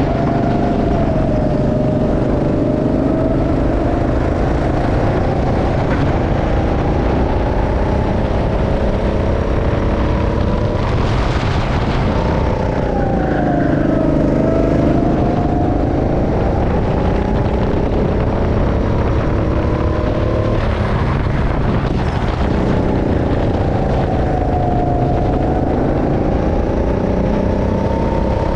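Go-kart engine running hard under the driver, its pitch falling as the kart slows into corners, most clearly about halfway through and again near the end, then climbing again as it accelerates out.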